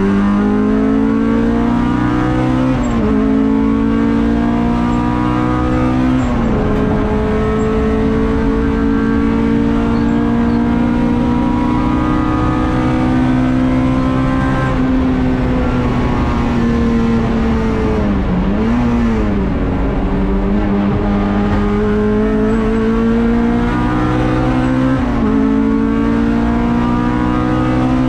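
Honda Civic race car's 1.6-litre four-cylinder engine, heard from inside the cockpit, pulling hard through the gears: the pitch climbs and drops sharply at each upshift, twice early on and twice more near the end, and in the middle it sags off the throttle with a quick dip and recovery.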